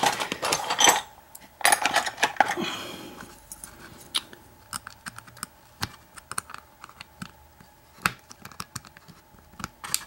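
Small metal lock parts clicking and rattling as a brass lock cylinder's plug and its steel cam are worked apart by hand: two dense flurries of clicks in the first three seconds, then scattered single clicks.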